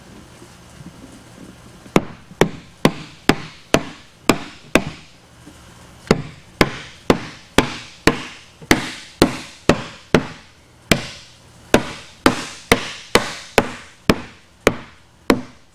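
Rubber mallet striking a wooden back panel, driving it down onto pre-glued wooden dowels. The sharp blows start about two seconds in and come about two a second, with a brief pause about five seconds in.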